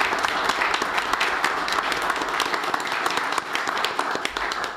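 Applause from a small group of people, many hands clapping at once, tapering off and stopping at the end.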